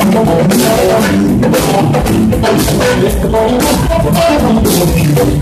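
Live blues band playing loudly: electric guitar, bass guitar and drum kit keeping a steady beat.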